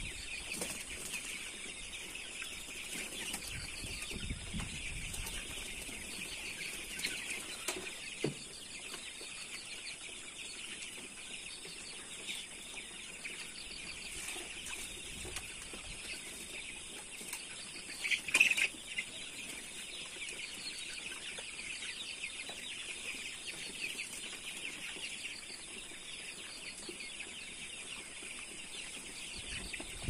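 A large flock of young broiler chickens calling continuously, a dense chorus of peeping and clucking, with a brief louder burst of calls about two-thirds of the way through.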